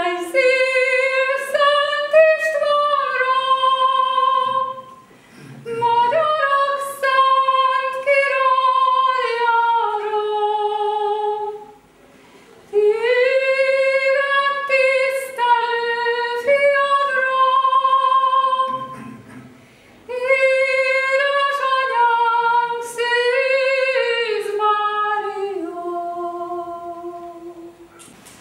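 A woman singing solo without accompaniment, in four long held phrases with short breaths between them. The last phrase falls and fades out near the end.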